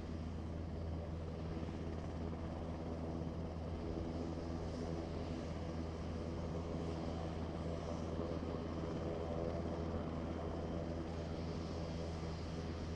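Airliner engines running steadily: a constant low hum with several even tones that neither rises nor falls.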